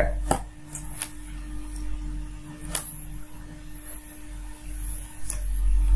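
Scattered light clicks and taps of multimeter test probes being handled and pressed against a potentiometer's pins, over a steady low hum.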